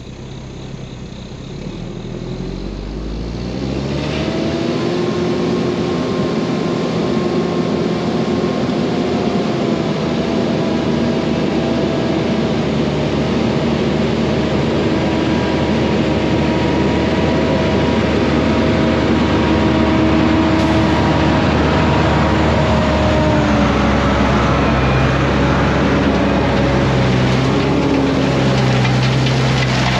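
Dump truck's diesel engine revving up over the first few seconds and then held at steady high revs, working under load while the truck puts down a load of rock, with a broad rumbling noise underneath.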